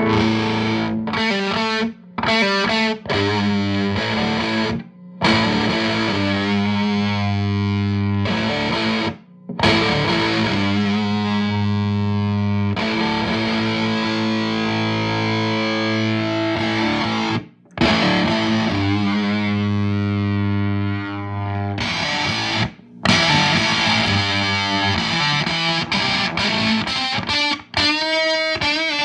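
Electric guitar played through a JHS Lizard Queen octave fuzz pedal: distorted, sustained notes and chords, stopping briefly several times.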